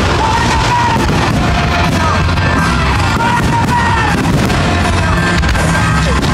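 Fireworks bursting in rapid succession: a constant rumble of bangs and crackles, with a high, wavering pitched sound over the top.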